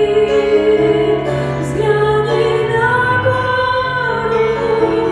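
Music from a slow Russian Christian song: long held notes over instrumental accompaniment, between sung lines.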